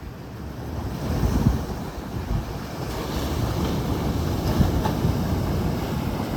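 Sea surf washing in, swelling about a second in, with wind buffeting the microphone in low rumbling gusts.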